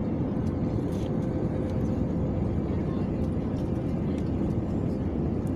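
Airliner cabin noise: a steady low rumble of engines and rushing air, with a faint steady hum.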